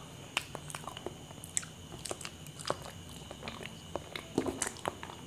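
Close-miked mouth chewing soft, ripe small bananas: irregular small wet clicks and smacks, with a few louder clicks just past four seconds in.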